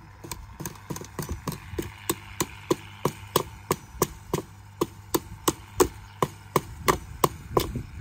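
Claw hammer striking a hard wooden fence post over and over, a steady run of sharp knocks at about three a second, a few blows landing harder than the rest.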